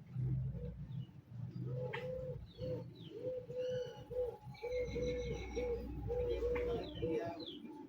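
Bird calling: a run of short, even, low notes, about two or three a second, with higher chirps in the middle, over a low rumble.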